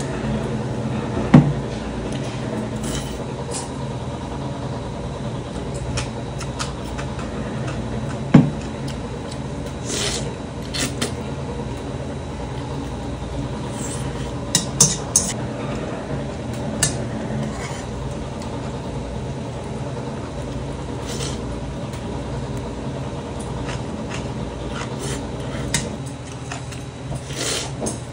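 Metal chopsticks stirring and lifting sauced noodles in a large stainless steel bowl. Two sharp knocks of the chopsticks against the metal come about a second in and about eight seconds in, with short wet eating and slurping sounds scattered through, over a steady background hum.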